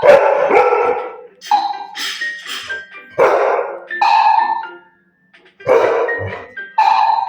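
Golden retriever barking several times in short bursts, over a toy's tinny music.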